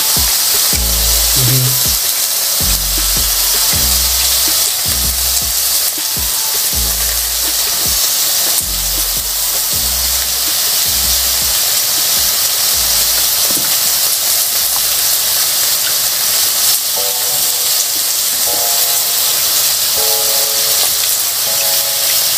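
Lamb chops sizzling on a grill pan, a steady hiss, over background music with a bass line that repeats about once a second.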